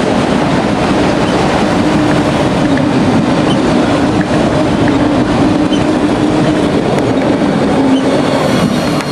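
Freight train cars rolling steadily past, a continuous loud rumble of steel wheels on rail with a steady hum underneath.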